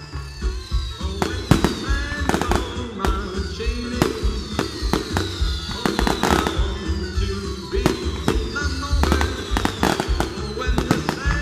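Fireworks display: a rapid, irregular run of shell bursts and crackles, with repeated falling whistles. It plays over loud music with singing.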